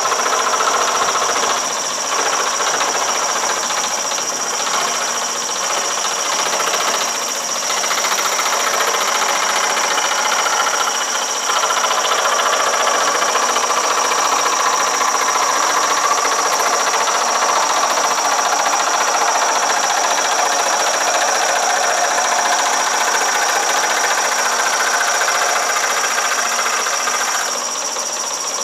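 Shopsmith 18-inch jigsaw (a scroll saw) running at about 900 RPM, its blade reciprocating rapidly as it cuts through half-inch yellow pine, with a steady high whine alongside. The sound drops a little about a second before the end.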